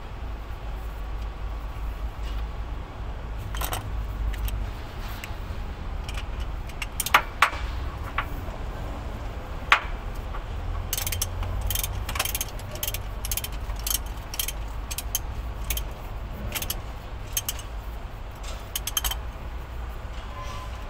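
Hand tools clinking and clicking against metal on a HOWO truck diesel engine while the injection pump's bolts are worked tight, in irregular sharp ticks that come thickest in the second half. A steady low rumble runs underneath.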